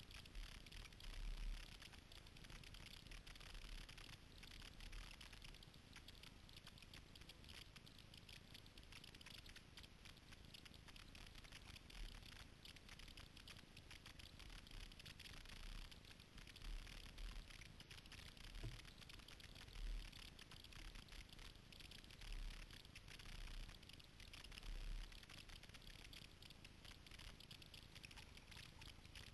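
Faint water sounds of kayak paddling: a steady trickling patter of paddle drips and water along the hull, with occasional soft low thumps.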